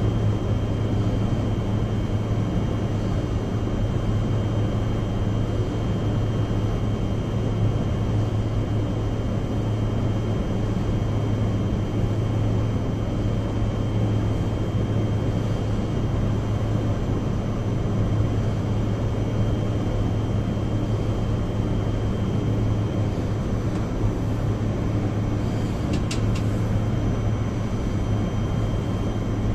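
Biological safety cabinet's blower running steadily: a constant drone with a low hum and a faint high, steady whine. Two light clicks near the end.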